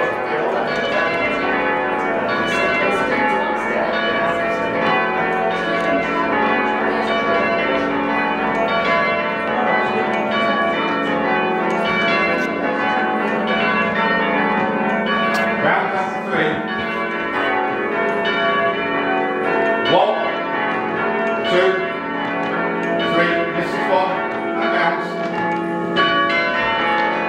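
Church tower bells being rung down together, many bells striking in quick succession so that their tones overlap into a continuous ringing wash.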